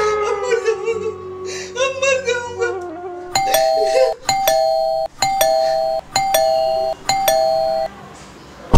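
Electronic ding-dong doorbell rung five times in quick succession, starting about three seconds in, each chime a higher note falling to a lower one. Someone is pressing the bell again and again.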